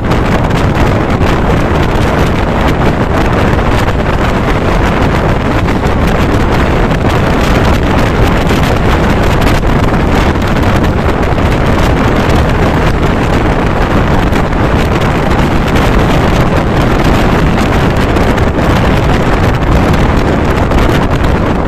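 Loud, steady rush of wind across the microphone from a moving passenger train, over the train's running rumble.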